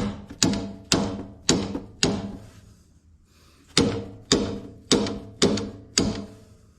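Hammer blows on a stuck steering wheel on a Ford 545A backhoe, knocking it loose from its shaft. There are two runs of sharp metal strikes, five and then six, about two a second, each ringing briefly.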